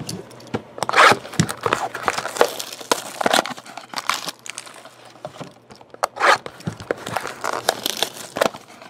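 Clear plastic wrapping on trading card packs crinkling and tearing as it is pulled off by hand, in irregular short bursts.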